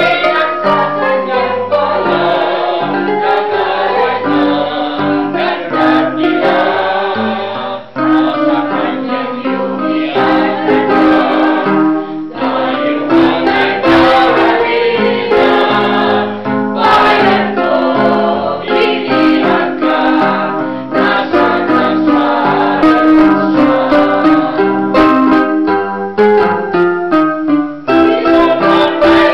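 A small amateur choir, mostly women's voices, singing together to electronic keyboard accompaniment.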